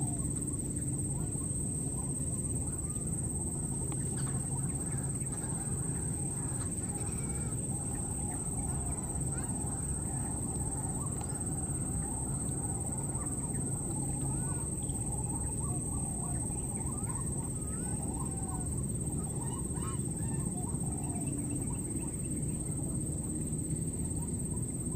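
A steady high insect drone runs throughout, with many short squeaky chirps scattered through it, over a constant low background rumble.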